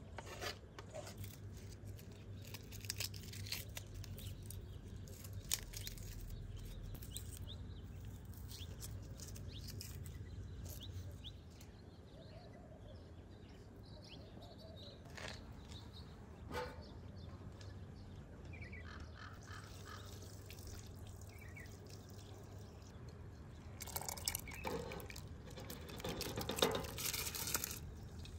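Kitchen work sounds: a knife tapping and scraping chopped herbs on a wooden cutting board, then near the end water boiling in a pot as rice grains are poured in.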